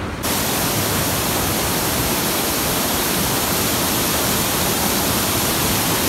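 Heavy white water of a waterfall torrent rushing over boulders close to the microphone: a dense, steady rush of water noise that cuts in abruptly just after the start.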